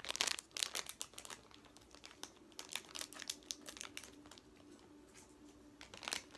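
Clear plastic snack wrapper crinkling and tearing as it is unwrapped by hand, a string of short crackles, dense in the first second or so, sparser in the middle and bunching again near the end.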